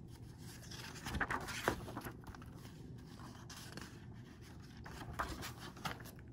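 Pages of a large hardcover picture book being turned by hand, the paper sliding and rustling, with a louder turn about a second in and another shorter one near the end.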